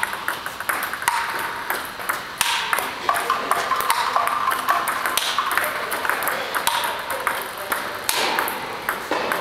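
Table tennis balls clicking in quick succession: balls fed by a ball robot, bouncing on the table and struck back with topspin strokes from a paddle with XIOM Janus rubber.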